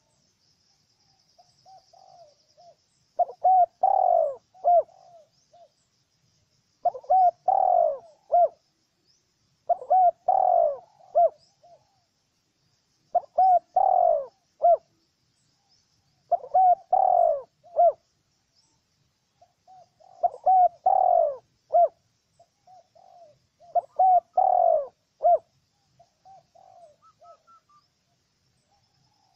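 Spotted dove cooing: a phrase of several low notes, repeated about every three and a half seconds.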